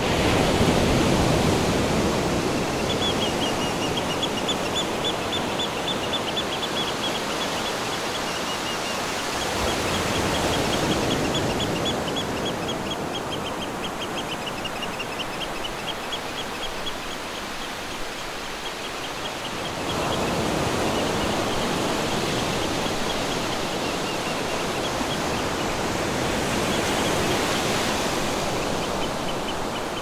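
Wind gusting through a field of young wheat: a rushing noise that swells and eases. A fast, high-pitched chirping trill runs faintly through most of it from a few seconds in.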